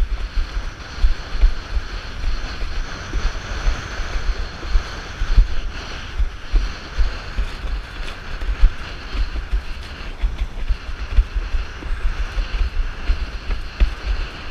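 Wind buffeting an action camera's microphone in heavy, uneven low gusts, over a steady rushing hiss of a windsurf board planing through choppy water.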